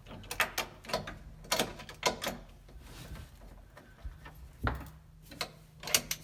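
Ratchet and socket clicking and knocking in short irregular runs as the 15 mm nuts holding a VW Beetle's pedal cluster are backed off after being broken loose.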